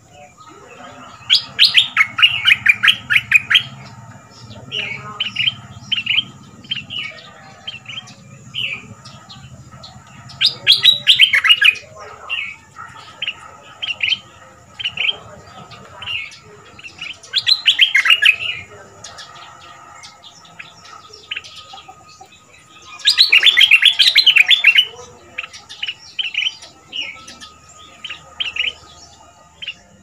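Stripe-throated bulbul singing in its cage: four loud bursts of rapid, tumbling song, each a second or two long, with short single chirps repeated between them.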